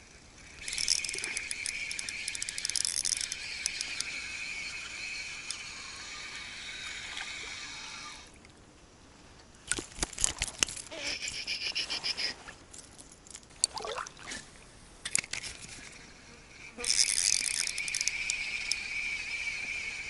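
Ultralight spinning reel being cranked: a steady whirring retrieve for about seven seconds that stops suddenly, then scattered clicks and knocks, then the whirring retrieve starts again near the end.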